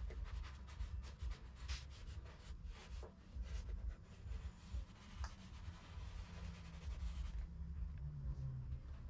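Faint scratchy rubbing strokes of a small plastic squeegee and fingertips burnishing a vinyl decal through transfer tape onto a car's painted trunk panel, thinning out about seven seconds in, over a steady low rumble.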